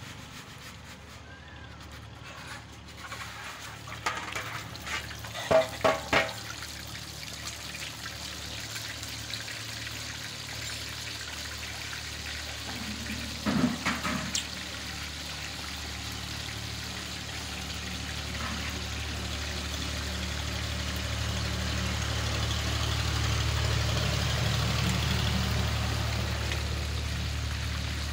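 Battered fish pieces deep-frying in a large iron karahi of hot oil: a steady bubbling sizzle that grows louder over the second half. A few sharp knocks come about a fifth of the way in, with the loudest near the middle.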